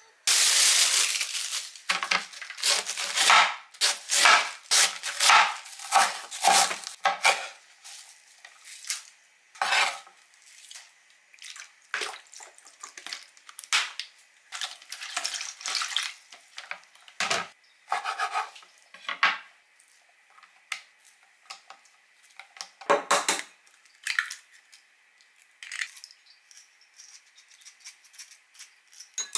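Kitchen prep sounds: a quick run of knife strokes on a wooden cutting board, about two a second, as garlic is sliced. Then scattered clinks and knocks of a plastic bowl and colander, a bottle and utensils being handled.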